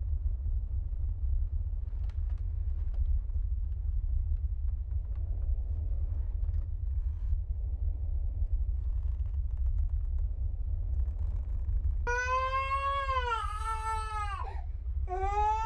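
A steady low rumble, then about twelve seconds in a baby starts crying: two long wailing cries that rise and fall in pitch, the second running on.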